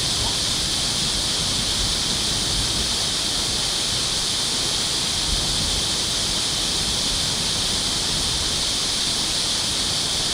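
Steady rushing of water through the dam, an even hiss that holds level throughout.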